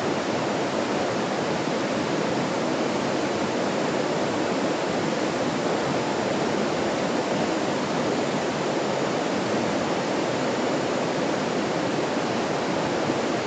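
Stream flowing, a steady even rush of water with no breaks or changes.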